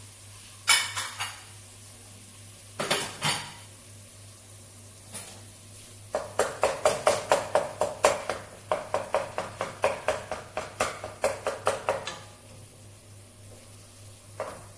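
A cooking utensil knocking and scraping against a pan as raw ground meat goes in with the vegetables for a meat sauce. A few separate knocks come first, then about halfway through a quick, even run of clinks, about five a second, for some six seconds as the meat is broken up and stirred.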